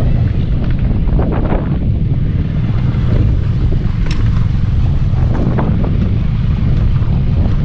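Steady wind buffeting the microphone of a moving motorcycle, with the rumble of its engine underneath.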